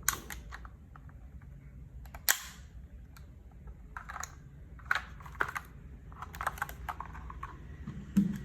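Keystrokes on a HelloGanss HS87T mechanical keyboard with Gateron Yellow Pro linear switches and PBT keycaps: keys clacking in short, irregular clusters, with a few single sharper clacks in between.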